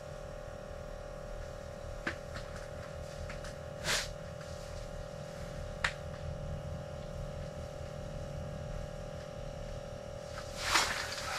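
Steady low hum with a constant tone inside a small ice-fishing shack, broken by three faint clicks a couple of seconds apart, then a brief rustle near the end.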